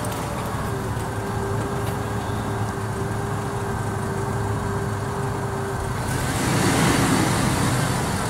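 Jeep Wrangler TJ engine running as the Jeep crawls slowly through mud, a steady low hum. About six seconds in the sound grows louder, with a broad rushing noise added.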